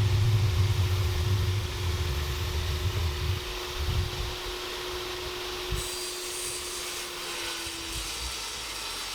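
A handheld power tool running on wood trim, with a steady motor tone throughout; it is heavier for the first three and a half seconds, then runs lighter.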